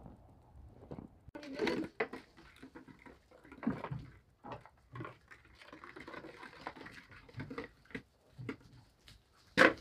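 Footsteps crunching and scuffing through fresh snow, uneven and irregular, with a sharp, loud knock near the end.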